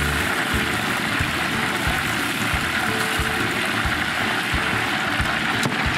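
Hot oil in a large wok sizzling steadily as battered chicken pieces deep-fry, with soft low thuds now and then.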